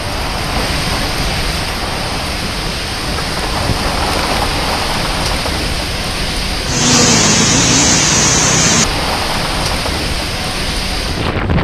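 Heavy rain falling in a steady hiss during a storm, with a louder, harsher stretch of about two seconds just past the middle.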